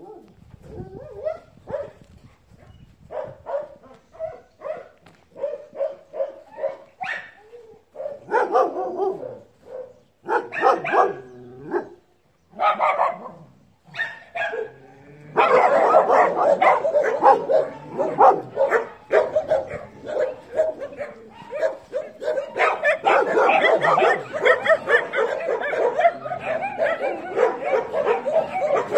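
Dogs barking: separate barks repeating about once or twice a second at first, growing louder. From about halfway on, many dogs bark and yip together in a dense, unbroken chorus.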